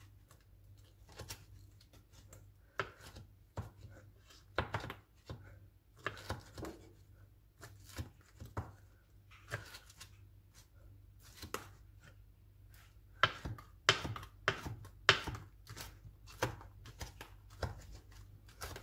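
Kitchen knife chopping cooked bacon on a cutting board in irregular strokes, which come faster and louder in the last few seconds.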